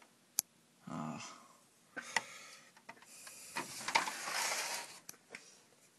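Wires and plastic ribbon cables being handled inside an old desktop computer case: scattered sharp clicks and a longer stretch of rustling a few seconds in.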